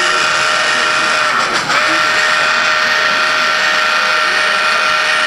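Model steam locomotive's sound system blowing its whistle in long blasts: a steady held whistle that breaks off briefly under two seconds in, then sounds again almost to the end.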